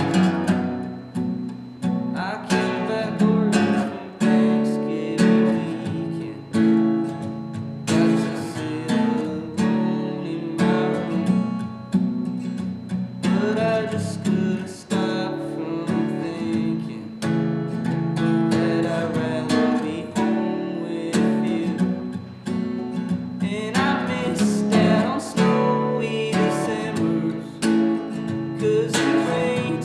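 Acoustic guitar strummed in repeated chord strokes, playing a song.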